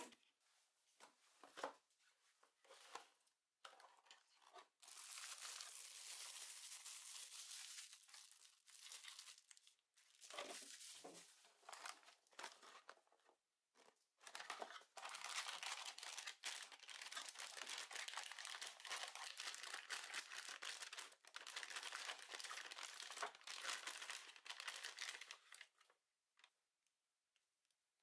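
Crinkling and tearing of a metallised foil antistatic bag being handled and opened, with light taps from cardboard box handling. The crinkling comes in two long dense stretches, the second longer, with scattered taps between them.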